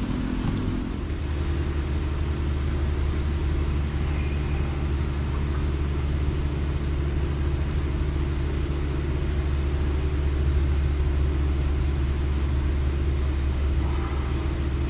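An engine running steadily with a low hum, its tone shifting about a second in and then holding even.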